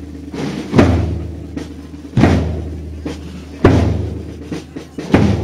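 Procession band playing a slow march: a bass drum, with a ringing crash, strikes about once every second and a half over held low brass notes.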